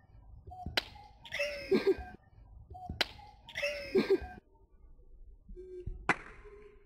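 Three sharp open-hand slaps land on a person's head. The first two are each followed by a short vocal cry.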